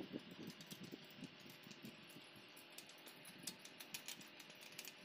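Faint, scattered small clicks and ticks of bolts and valve-train parts being handled and set into an Isuzu diesel cylinder head, more of them in the second half, over a low hiss.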